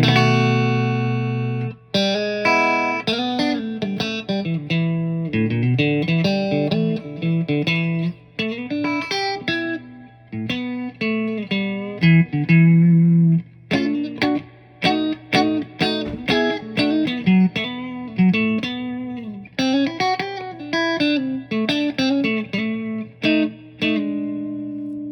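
A 1987 G&L SC-3 electric guitar with three single-coil pickups, played through an amp: a strummed chord rings for about two seconds, then fast single-note lines with string bends, ending on a sustained chord.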